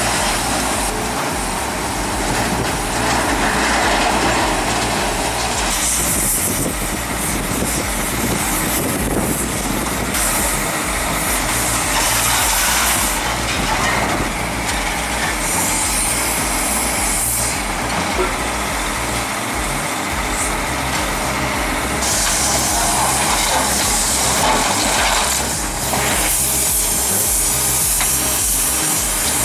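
Heavy machinery running steadily, with long bursts of loud hissing that come and go every few seconds.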